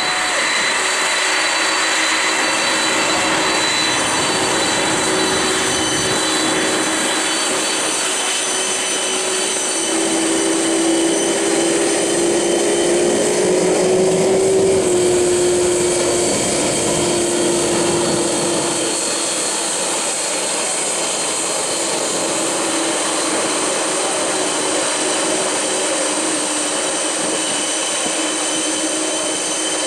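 A Boeing 747-400's four jet engines run at taxi power as the airliner rolls and turns at the runway end, a steady roar with a high whistling whine. A humming tone rises slightly and grows loudest around the middle, as the jet passes broadside.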